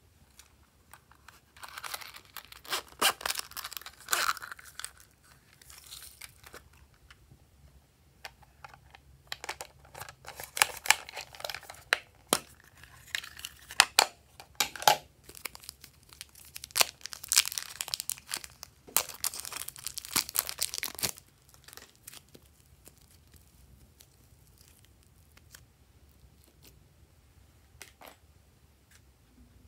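Plastic slime containers and their packaging being handled and opened, crinkling and crackling in bursts of sharp clicks, with a tearing sound. The crackling stops about 21 seconds in.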